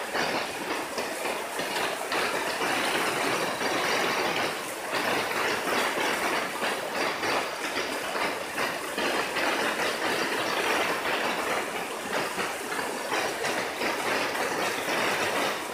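Steady rush of river water flowing over stones, swelling and easing slightly.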